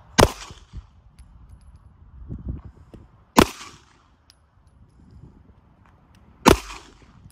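Three single pistol shots from a Smith & Wesson M&P Shield Plus, about three seconds apart, each a sharp crack trailing off in a brief echo.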